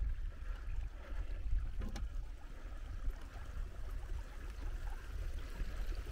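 A small mountain stream trickling over rocks, under a steady low rumble of wind on the microphone, with one brief knock about two seconds in.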